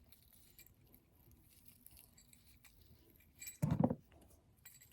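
Small jingle bells on a pipe-cleaner craft jingling briefly about three and a half seconds in, after a stretch of near silence.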